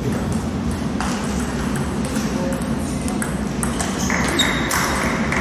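Table tennis ball clicking sharply off the bats and the table in a short rally, a few clicks in the second half. Underneath runs the steady murmur of a large hall with voices.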